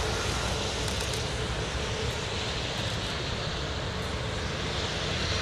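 Airbus A321neo's turbofan engines running at taxi power as the airliner rolls slowly along the runway: a steady rumble and hiss with a constant hum.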